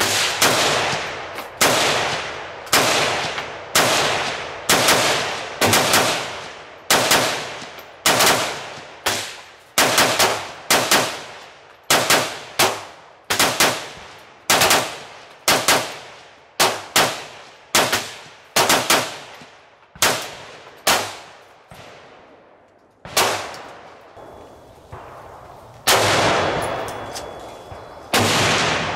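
Gunshots: a long string of about forty shots at an uneven pace of one or two a second, each trailing off in echo, thinning to a few spaced shots over the last several seconds.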